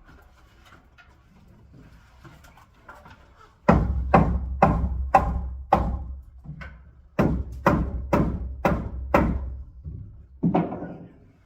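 Hammer driving nails into wood framing: about a dozen sharp, ringing strikes, roughly two a second, starting about four seconds in.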